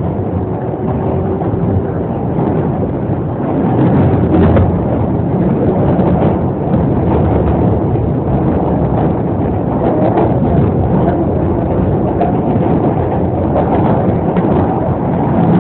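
R143 subway train running at speed: a steady loud rumble of wheels on rail with irregular clicks and rattles, getting louder about four seconds in.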